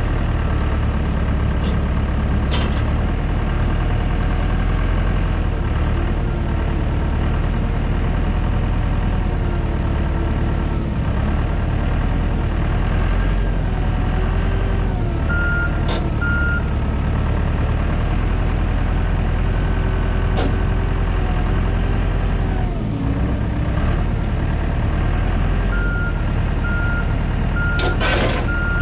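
Heavy equipment diesel engine running steadily, with hydraulic whine rising and falling in pitch as the machine works. A backup alarm beeps briefly about halfway through and again for the last few seconds, with a short noisy burst near the end.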